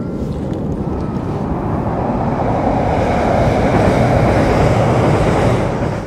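A train crossing the steel railway bridge overhead: a heavy rumble that grows steadily louder.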